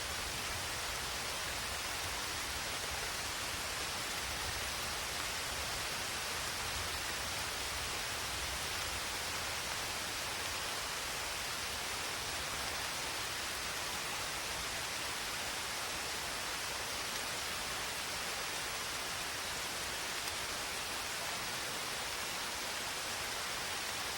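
Rain falling steadily, a dense even hiss with no separate impacts standing out.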